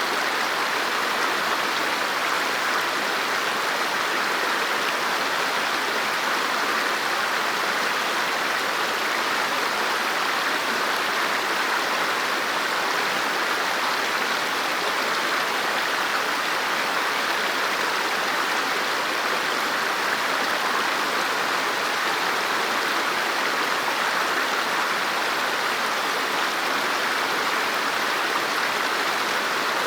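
River water flowing over rocks: a steady, even rush of running water.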